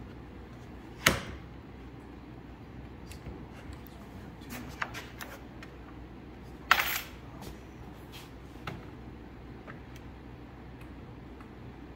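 Two sharp clacks, one about a second in and a louder one near the seventh second, with a few lighter ticks between them: tools or pieces of material being set down and handled on a workbench. A steady low hum runs underneath.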